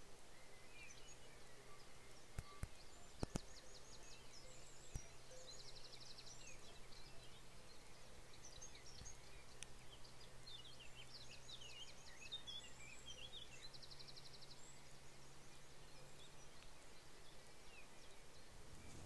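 Small songbirds singing faintly, several phrases with quick, evenly spaced trills. Under them runs a low steady hum, and a few sharp clicks come about two to five seconds in.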